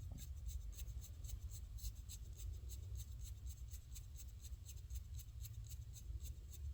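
Faint scratching and handling as a small screw is turned in by hand to fasten a billet aluminum shift knob.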